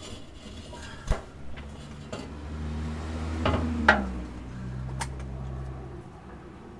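A few sharp metal knocks as a Toyota truck's driveshaft, fitted with new U-joints, is worked into place by hand; the loudest knock comes a little past halfway. A low vehicle engine hum swells in the background through the middle.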